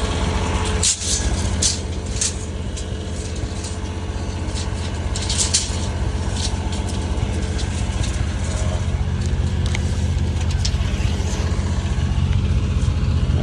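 Small diesel engine of a Chinese mini skid steer running steadily, with a few brief metallic clinks and rattles in the first half.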